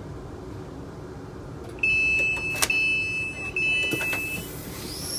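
Train passenger doors being released and opening: a steady, high electronic warning beep sounds in three stretches of about a second each, starting a couple of seconds in, with a sharp clunk partway through as the doors open, after which the station's outdoor noise comes in.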